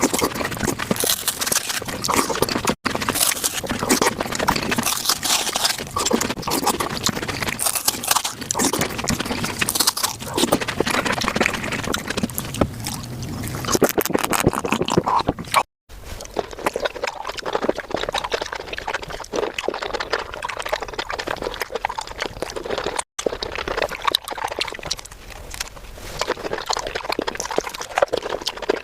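Close-miked eating of fruit played back sped up: a dense, rapid crackle of bites and chewing, cut by three brief dropouts where the clips are joined.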